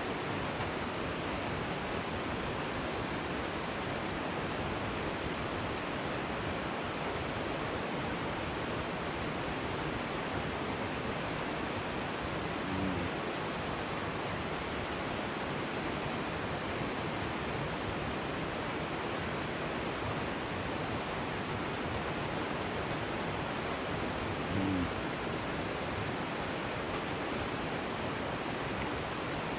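Steady rushing of running water from a stream, an even hiss that holds level throughout. Two brief low sounds stand out, about halfway through and again near the end.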